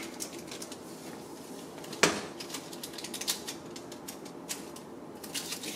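Light, quick taps and clicks as stevia sweetener is tapped out of its container into a plastic blender cup, with one sharper knock about two seconds in.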